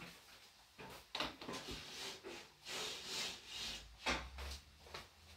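Irregular rubbing, scraping and knocking handling sounds, a string of short bursts, as someone works with things by hand.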